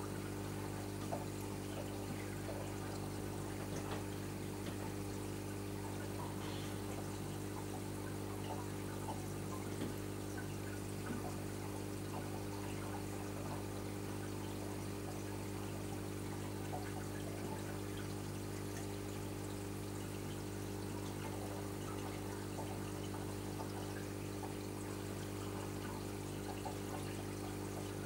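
Reef aquarium's circulation pumps running with a steady hum, under the irregular trickle and splash of water moving through the tank's plumbing.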